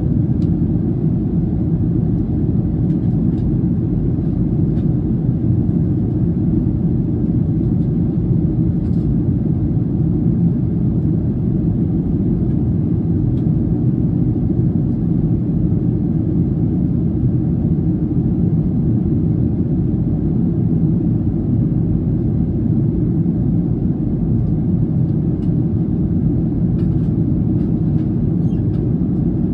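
Steady cabin noise of a jet airliner in flight, heard inside the cabin: a constant low rumble of engines and rushing air.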